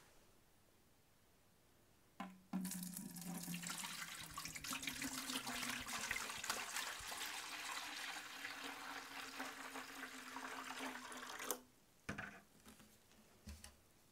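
A stream of water pouring into the plastic tank of a VAX bucket wash vacuum cleaner, filling its water filter. It starts about two seconds in, rises slightly in pitch as the tank fills, and stops abruptly a couple of seconds before the end.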